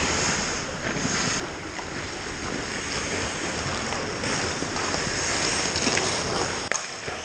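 Ice hockey skates scraping and carving across rink ice in a steady hiss, with a few sharp clacks from sticks and puck, one near the end.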